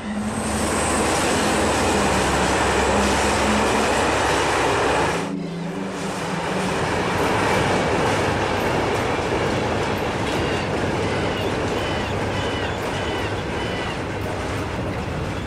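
Train passing at close range: a loud, steady rush of wheels on the rails with clickety-clack. About five seconds in it cuts abruptly to a somewhat quieter, more distant train rumble.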